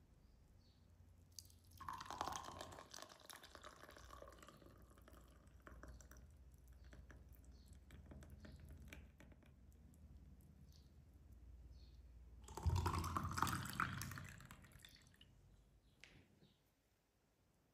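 A milky drink poured from a glass jug into a glass goblet. There is a pour about two seconds in, a quieter trickle through the middle, and a louder pour near the end whose pitch rises as the glass fills.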